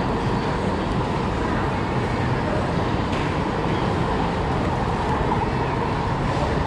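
Steady road-traffic noise of a busy city street, an even hum with no single vehicle standing out.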